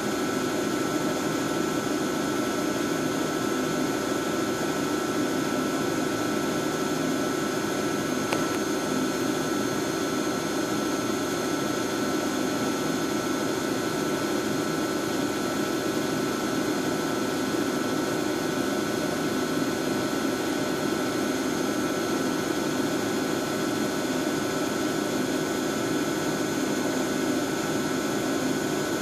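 Screen PT-R8100 computer-to-plate platesetter running while it records (images) a plate: a steady machine noise with a steady high whine over it. There is one faint click about eight seconds in.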